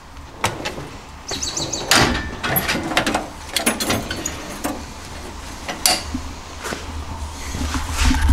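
Scattered knocks and clanks of metal tools being handled at a welding cart and steel tool chest, with a short rattling slide about a second and a half in. The loudest knocks come about two seconds in and near the end.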